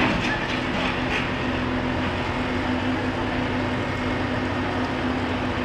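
Steady engine noise of heavy vehicles and machinery, with a few light clicks in the first second or so.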